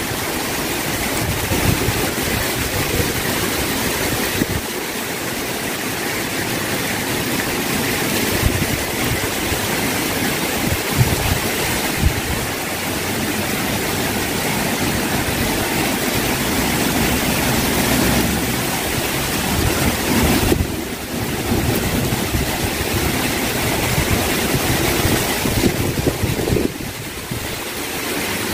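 Heavy monsoon rain pouring steadily, with strong gusts of wind buffeting the microphone in low, uneven rumbles.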